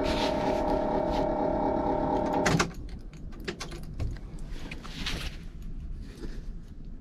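A steady electrical hum from the motorhome with its ignition on stops at a click about two and a half seconds in as the ignition key is turned off, after the engine tune has finished flashing. Faint handling rustles follow.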